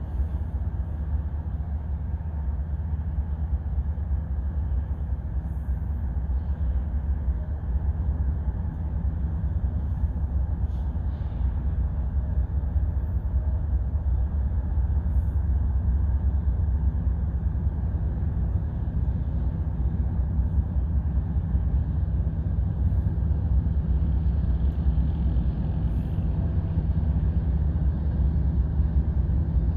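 Distant GE diesel locomotives (an ES44AC and an AC4400CW) leading a slow-moving freight train: a steady low engine rumble, growing gradually louder as the train approaches.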